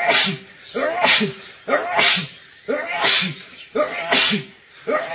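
A man sneezing over and over in quick succession, five sneezes about a second apart, each a sharp blast with a cry that falls in pitch.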